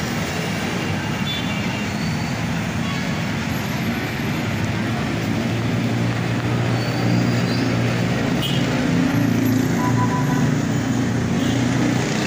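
Heavy stop-and-go city traffic: a steady din of idling and slow-moving jeepneys, cars and motorcycles, the engine hum growing louder about seven seconds in.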